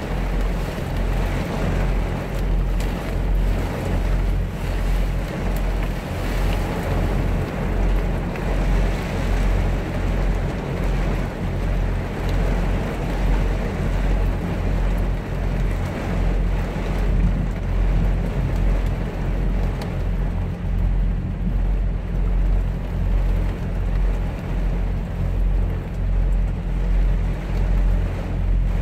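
Heavy rain drumming on a Kenworth semi-truck's cab and windows, heard from inside the cab, over the low steady hum of the idling truck.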